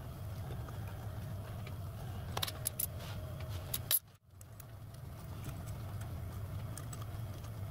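A few light metallic clicks and clinks of an Allen key and small tool against the micro lathe's spindle and pulley parts, about halfway through, over a steady low hum. The sound drops out briefly just after the clicks and then the hum returns.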